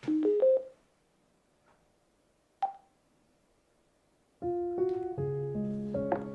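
Small wooden tabletop speaker sounding an electronic start-up chime of four quick rising notes, then a single short beep a couple of seconds later. Piano music begins about four seconds in.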